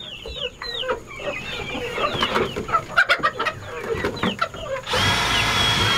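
A crowded flock of bantam chickens clucking and calling, many short calls overlapping. Near the end a loud, steady whir comes in for about two seconds and covers the clucking.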